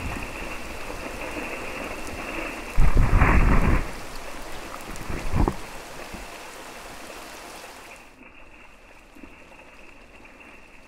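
Rain falling steadily on forest foliage. There is a loud, low-heavy thump lasting about a second, starting about three seconds in, and a shorter one about five seconds in. The rain hiss drops noticeably about eight seconds in.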